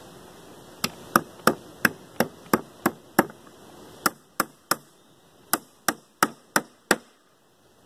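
Small hammer tapping nails into the corner of a wooden beehive frame, about three sharp wooden knocks a second in three runs (eight, then three, then five) with short pauses between.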